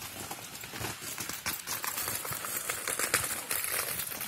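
Footsteps and rolling suitcase wheels crunching and rattling over a dirt path, a rapid, irregular clatter of small clicks.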